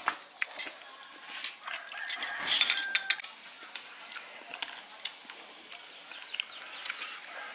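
Scattered clinks and taps of spoons, cups and ceramic dishes on a wooden table during a meal, with a louder clatter about two and a half seconds in.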